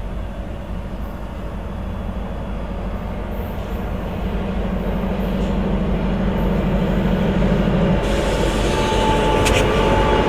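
Approaching CSX Q112 stack train's diesel locomotives, a low engine rumble growing steadily louder. From about eight seconds in a brighter rush of noise joins as the train draws near.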